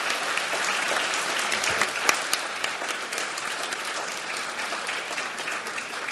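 Audience applauding: many hands clapping together, slowly thinning out toward the end.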